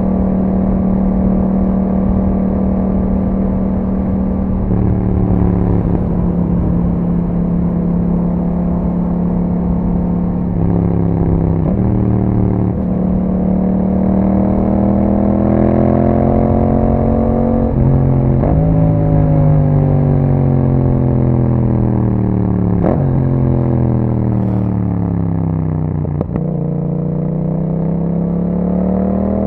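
2021 Yamaha MT-07's parallel-twin engine through an Akrapovič exhaust, heard while riding. It holds a steady note, then climbs in pitch through several gear changes, falls away during a long slowdown, and picks up again near the end.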